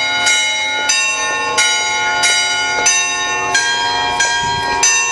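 Church tower bells ringing: several bells struck one after another, a fresh strike about every two-thirds of a second, each note ringing on into the next.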